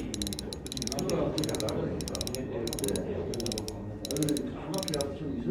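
The drag of a 2021 Shimano Ultegra C2000S spinning reel clicking as line is pulled off the spool by hand. It comes as a series of short bursts of rapid clicking, about one burst every two-thirds of a second.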